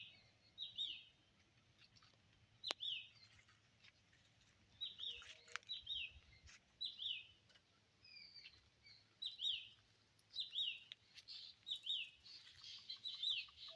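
A bird calling repeatedly: short, high chirps that slide downward in pitch, mostly given in pairs, every second or two.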